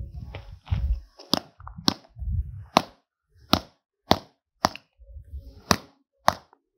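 Claw hammer striking a small cylindrical lithium-ion cell lying on the ground: about eight sharp blows at an uneven pace, the cell being deliberately crushed.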